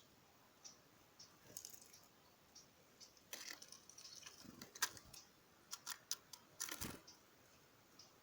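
Faint, scattered sharp clicks and taps from small birds pecking at food, most of them bunched together from about three to seven seconds in.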